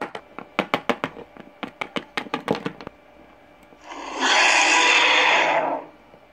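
Hard plastic Littlest Pet Shop figures clacking against each other in a quick run of taps for about three seconds in a play fight. About four seconds in, a loud hissing noise follows and lasts about two seconds.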